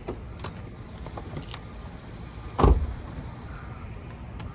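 A vehicle door shut with one heavy thump about two-thirds of the way through, after a couple of light clicks near the start, over a steady low rumble.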